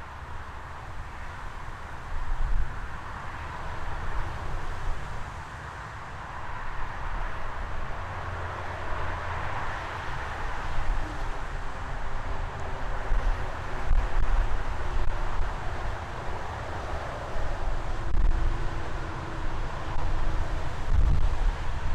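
Wood-Mizer LX25 portable band sawmill running, its blade cutting through a large white pine log: a steady noisy whir over an uneven low rumble.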